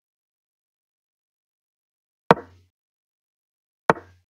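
Online chess board's move sound effect: two short sharp clicks about a second and a half apart, one for each piece moved.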